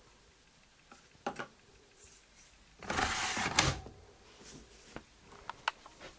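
Plastic detergent dispenser drawer of a Panasonic front-loading washing machine pushed shut: a sliding rasp of about a second ending in a clunk. Light plastic clicks come before and after it.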